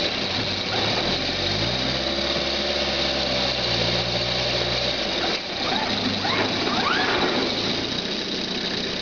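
Homemade forwarder's engine running, its pitch rising about a second and a half in and dropping about five seconds in as the machine moves and turns. Over it a steady high whine and, a little past the middle, a few short rising squeals.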